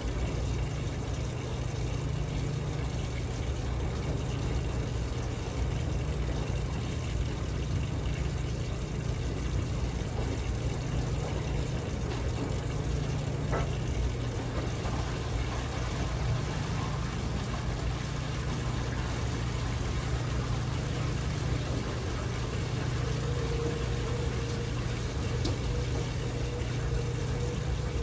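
Dexter T900 front-loading washer tumbling a wet load: a steady low motor hum with water and laundry swishing in the drum. A faint whine rises slightly near the end.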